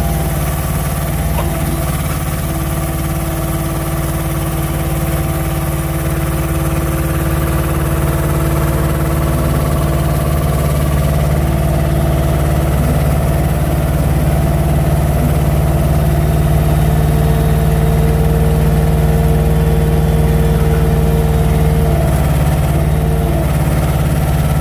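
Truck diesel engine running steadily at a constant speed, powering the loader crane's hydraulics. A higher whine comes in about two seconds in and fades, and another, higher one comes and goes later.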